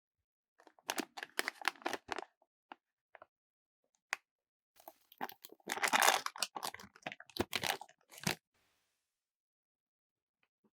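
A foil blind-bag packet crinkling as it is handled and being torn open, in bursts of crackle with a few single clicks. The longest, loudest tear comes about halfway through.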